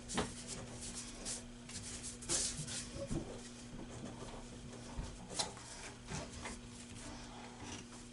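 A wooden bowl blank being twisted by hand onto a lathe chuck's screw: scattered light clicks, knocks and rubbing of wood against metal, over a steady low hum.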